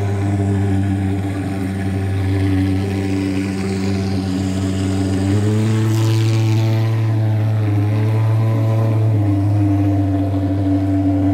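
Fogging machine's engine running with a steady, loud buzzing drone and a strong low hum, shifting pitch slightly about five seconds in and again near nine seconds.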